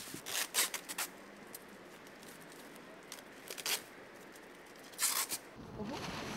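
Plastic sheeting rustling and crinkling in a few short bursts as a wrapped mould is handled. Near the end a steady street and traffic noise comes in.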